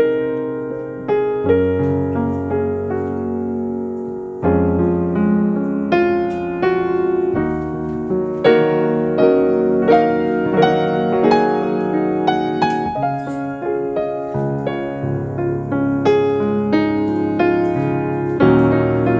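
Soft background piano music: a slow piece of struck piano notes and chords that ring and fade.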